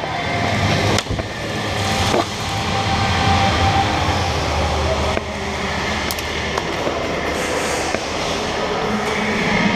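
Rumbling movement and handling noise on a body-worn action camera as its wearer moves quickly on foot, with a few sharp clicks.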